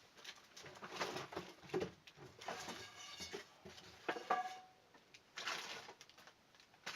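Irregular clicks, scrapes and rustles of small parts being handled and worked by hand.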